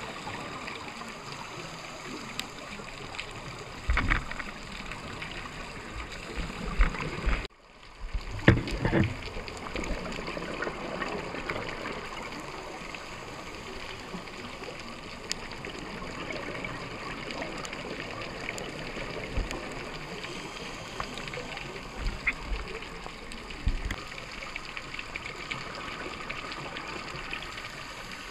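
Underwater sound heard through a dive camera housing: a steady watery hiss, with louder bursts of a scuba diver's exhaled bubbles a few times in the first ten seconds and a brief dropout about seven and a half seconds in.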